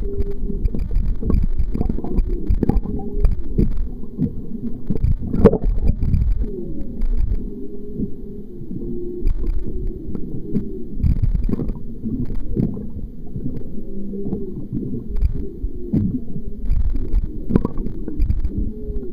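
Whale calls heard underwater: a run of low moans and wavering tones, some gliding up or down, over rumbling water noise. Scattered knocks, with one sharp, loud knock about five and a half seconds in.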